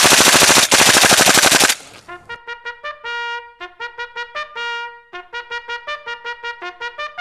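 An airsoft gun fires one long full-auto burst of rapid, evenly spaced shots that stops suddenly just under two seconds in. A trumpet-like brass tune of short, quick staccato notes then starts and runs on.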